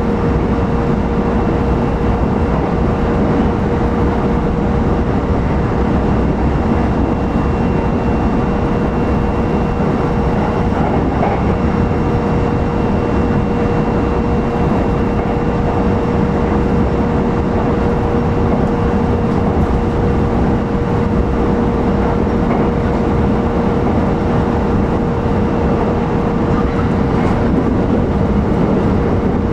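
Running noise inside a JR E129 series electric train's motor car at steady speed: continuous rumble and rail noise with a steady whine held at one pitch.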